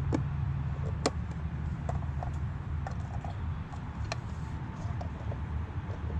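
Scattered light clicks and taps as a small part is worked apart by hand, over a low steady rumble.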